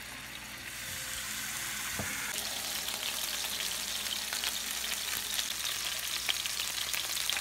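Sirloin steaks searing in hot olive oil in a nonstick frying pan: a steady sizzle with small crackling pops. The sizzle grows louder about two seconds in, as a second raw steak joins the first.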